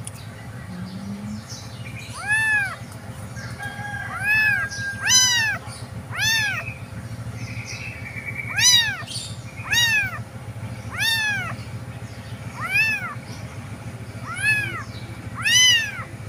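Young tabby kitten meowing over and over, about ten short calls a second or two apart, each rising then falling in pitch. These are the cries of an abandoned kitten without its mother.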